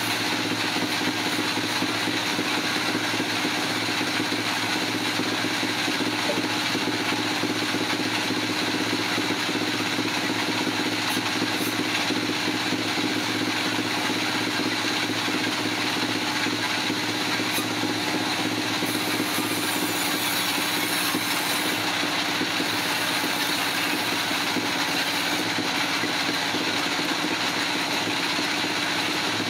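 Sawmill machinery running steadily with a constant engine-like drone. A brighter high hiss comes and goes for a few seconds past the middle.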